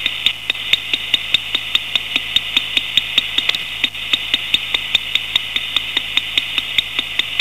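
Electronic line noise, the psophometric noise the artwork is built on: a steady hiss held in a narrow upper-middle band, crackling with sharp clicks about six times a second over a faint low hum.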